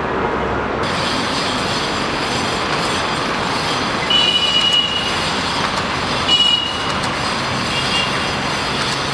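Steady rushing urban noise with brief high-pitched squeals, the clearest about four and six seconds in.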